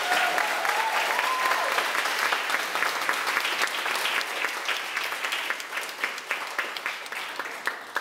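A crowd of guests applauding, with a cheer or two in the first second; the clapping thins out and fades toward the end.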